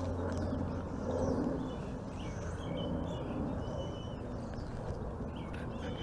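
A steady low background rumble with several short, high bird chirps about two to three seconds in.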